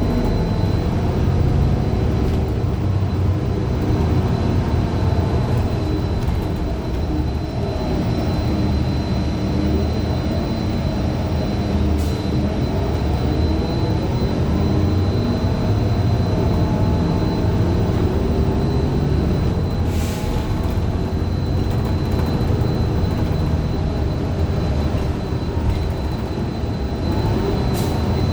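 Inside a 2015 Gillig Low Floor 40-foot bus under way: its Cummins Westport ISL G natural-gas engine runs with the pitch rising and falling as the bus speeds up and slows. A faint steady high whine runs through it, and a few sharp knocks come at intervals. The uploader calls the bus's Allison B400R transmission messed up.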